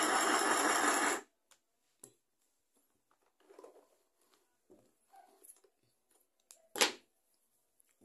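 Mini electric sewing machine running steadily as it stitches cotton jersey, then stopping abruptly about a second in. After that there is faint rustling of fabric being handled and one sharp knock near the end.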